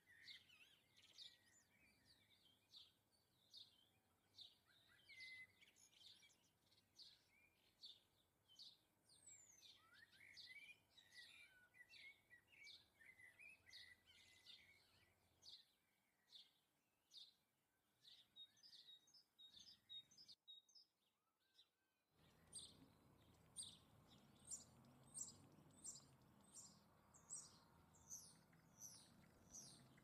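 Faint, rapid chirping and twittering of goldfinches, many short high notes in quick succession. The calls drop out briefly about two-thirds of the way through, then resume over a low background noise.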